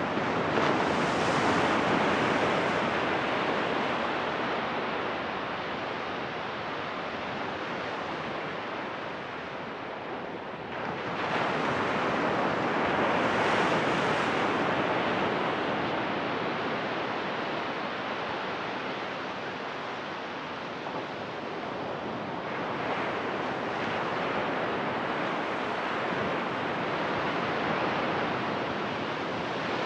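Ocean surf: small waves breaking and washing up a sandy beach. It is a steady rush that swells louder with each breaking wave, about every ten seconds.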